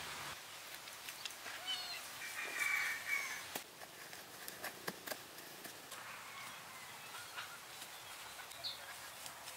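Birds calling, with one louder harsh call about two and a half seconds in, over scattered light taps and rustling of grass turf being pressed into soil by hand.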